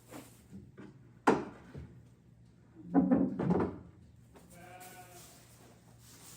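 A wooden gravity latch on a stanchion wall knocks sharply as it is opened about a second in, and the panel clatters near three seconds. Then an animal at the stanchion gives a single bleat lasting about a second.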